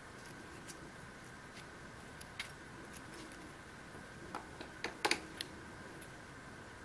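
Small clicks and taps from handling a foam hopper fly in a fly-tying vise, a few scattered and a quick cluster of louder ones about five seconds in, over a faint steady hiss.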